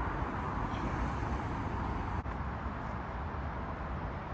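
Steady outdoor background noise, an even hiss with a low rumble like distant road traffic, dipping briefly about two seconds in.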